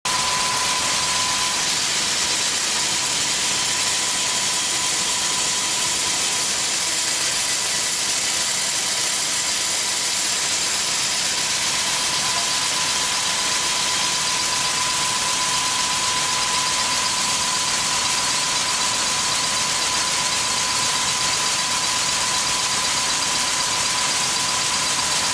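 Seed-processing gravity separator running, beans spreading across its vibrating air deck: a steady machine noise with a constant high whine.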